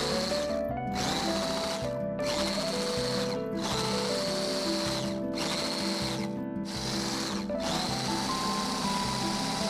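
Electric whisk whirring steadily as it beats cake batter in a glass bowl, under background music with a simple stepping melody.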